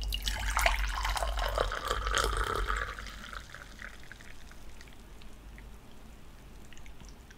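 Tea poured from a teapot into a cup, a full stream for about three seconds, then thinning to a faint trickle and drips.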